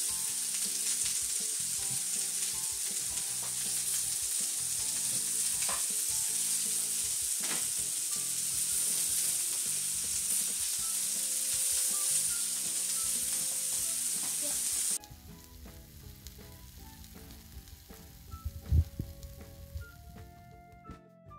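Chicken satay skewers sizzling on a hot grill pan, with a couple of knocks as skewers are handled. The sizzling cuts off suddenly about two-thirds of the way through, leaving soft background music and a single thump.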